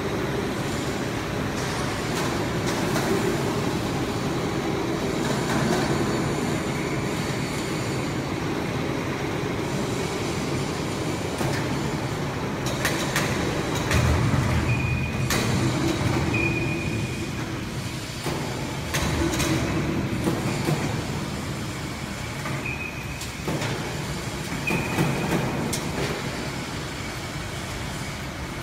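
VL550 vertical CNC machining center running with steady mechanical noise, with scattered knocks and a few short high-pitched tones in the second half.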